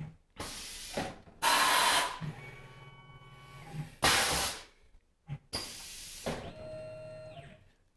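Tormach PCNC 1100's automatic tool changer running a tool change. There are four loud hisses of compressed air as the pneumatic drawbar releases and grips, and between them a steady motor whine as the carousel swings in under the spindle and back out.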